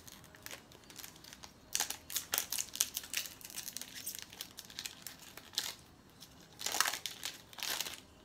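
Small gold foil sachet crinkling in the hands as it is worked open, in irregular bursts of crackling that are loudest about two seconds in and again near the end.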